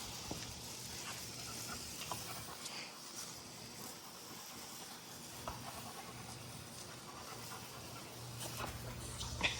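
German Shepherd panting, over a steady hiss.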